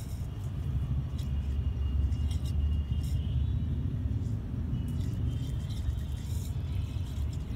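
Water draining down a floor drain through its perforated metal cover, heard as a steady low rumble with a few faint clicks.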